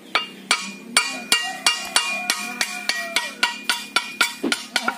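A hammer striking a three-bladed brass boat propeller blade against a wooden block, about three even blows a second, each blow leaving the blade ringing. The blows bend the blade to set the propeller's pitch.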